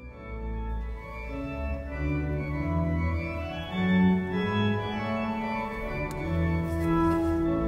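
Pipe organ playing sustained chords over a low bass line, swelling in from silence at the start.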